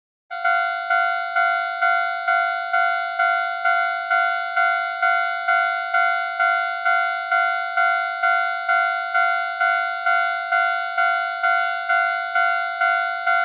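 Japanese railway level-crossing warning signal ringing its steady 'kan-kan' alarm, a bit over two strikes a second, each ringing out and fading before the next. It starts about half a second in.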